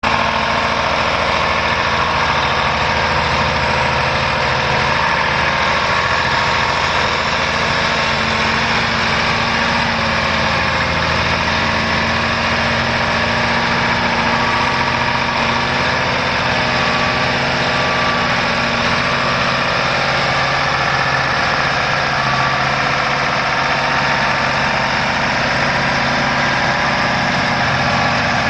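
A 2009 Mack Granite truck's Mack MP8 12.8-litre inline-six diesel idling steadily.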